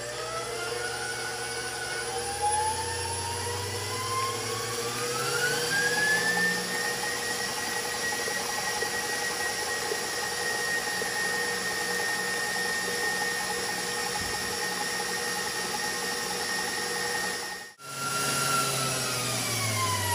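KitchenAid stand mixer with a wire whisk beating eggs and sugar: the motor's whine rises in pitch over the first several seconds as the speed is turned up to maximum, then holds steady at top speed. Near the end it drops out for an instant and comes back with its pitch falling.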